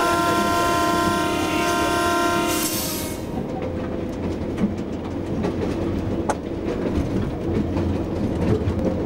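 A train whistle sounds one long, steady, many-toned blast from the locomotive, which stops about three seconds in. After it comes the steady running rumble of the train, with scattered clicks and clatter of the wheels over rail joints and pointwork.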